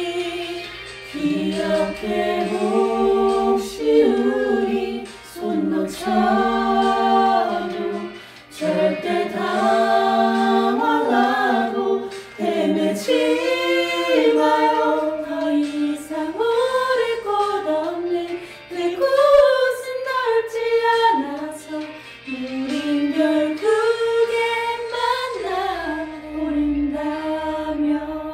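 Mixed a cappella vocal group of three women and two men singing a ballad in close harmony, several voices holding chords together that shift every second or two.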